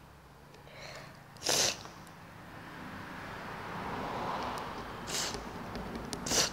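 A person's breath close to the microphone: three short, sharp bursts, the loudest about a second and a half in, with a faint rustle between them.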